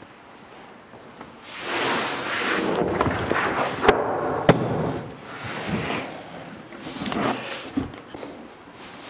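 A clear plastic dough tub is tipped upside down onto a floured wooden worktable, with plastic rubbing and scraping on the wood. There are two sharp knocks of the tub on the table about four seconds in, and a dull thud near the end.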